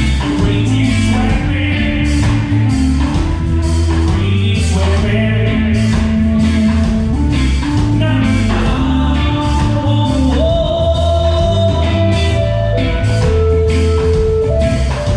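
Reggae band playing live: a steady bass line and drums under electric guitar, with a man singing.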